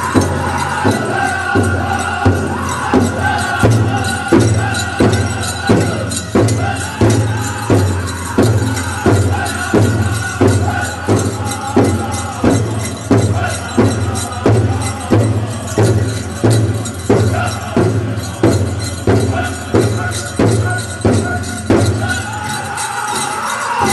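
Powwow host drum group playing a song for the chicken dance: a steady, even drumbeat of about one and a half strikes a second on a large shared drum, with chanted group singing over it. The beat stops near the end while the singing carries on.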